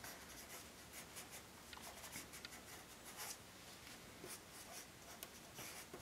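Faint scratching of a pen on paper in short, irregular strokes as a squiggly line is drawn.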